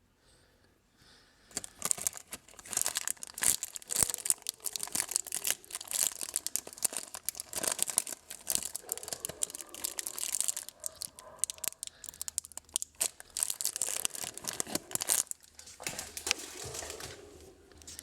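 Plastic food packaging being crinkled and torn open at close range: a dense run of crackling rustles that starts about a second and a half in and breaks off near the end.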